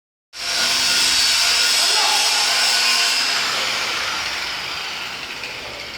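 Electric welding arc on a pipe joint in the 6G position, a steady loud hiss that starts a moment in and slowly fades toward the end.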